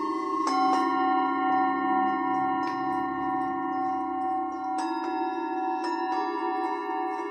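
Tibetan singing bowls struck with a mallet several times, each strike ringing on over the others in a layered chord of steady tones.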